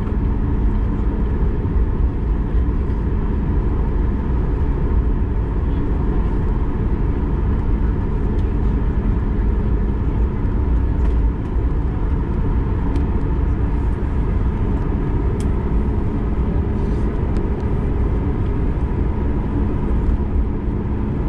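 Boeing 737 MAX 8 taxiing slowly, heard from inside the cabin: a steady low rumble with the hum of its CFM LEAP-1B engines at idle.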